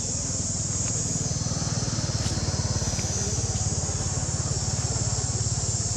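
A small engine running steadily with a fast, even pulse, getting a little louder about a second in.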